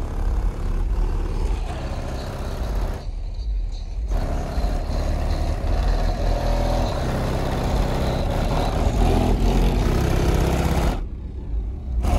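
Bass-heavy music played through two Sundown ZV4 15-inch subwoofers in a ported box tuned to 35 Hz, heard from outside the SUV with very strong deep bass. Twice the higher parts drop out for about a second, leaving only the bass.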